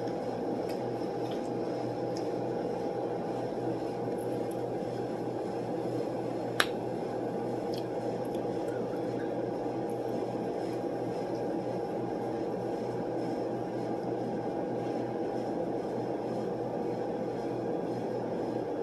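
Steady hum of room machinery, with faint eating and mouth sounds over it and one sharp click about six and a half seconds in.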